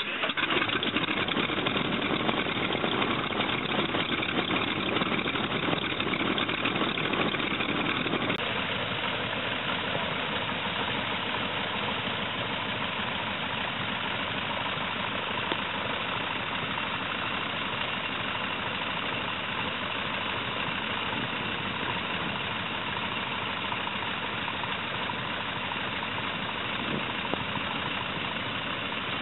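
Stearman biplane's 250 hp radial engine idling steadily just after being started. It is heard from the cockpit at first, then about eight seconds in from outside the aircraft, a little quieter.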